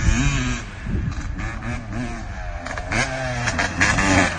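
Dirt bike engine revving hard, its pitch climbing and dropping again several times as the throttle is worked.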